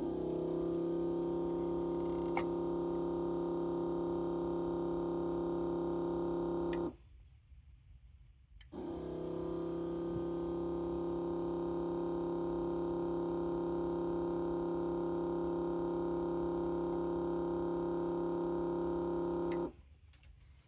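Electric desoldering tool's vacuum pump running with a steady hum, sucking molten solder off circuit-board joints. It runs for about seven seconds, cuts off sharply for about two seconds, then starts again and runs for most of the rest.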